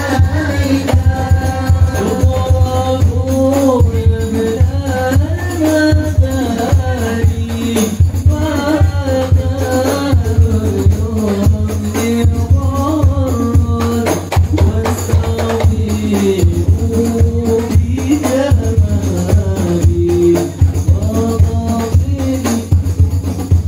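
Young male voices singing sholawat, an Islamic devotional song, together through microphones and a loudspeaker, with held, bending melody lines over a steady drum beat.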